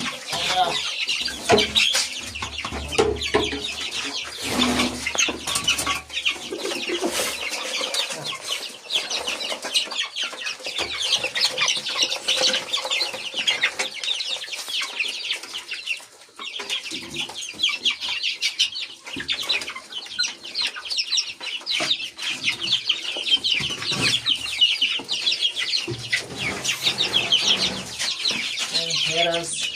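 A flock of chickens clucking and cheeping in a continuous high-pitched chatter, with low knocks in the first several seconds and a short lull about halfway through.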